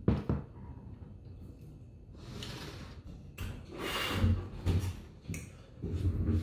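A man breathing out hard through his mouth in a series of heavy puffs, several with a low groan, from the burn of a Carolina Reaper chip. A spoon clicks against the ice-cream cup right at the start.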